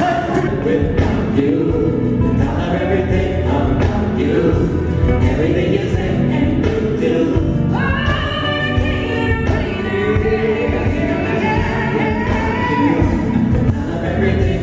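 Live gospel choir singing with a lead vocalist and band, amplified through the stage sound system. About eight seconds in it cuts suddenly to a different song, with a lead singer over the band.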